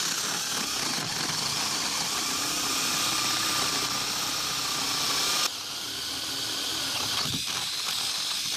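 Power drill with a 1-inch spade bit boring down through a wooden wall top plate, running steadily under load with a faint motor whine. About five and a half seconds in it drops suddenly in level and keeps cutting, then stops near the end.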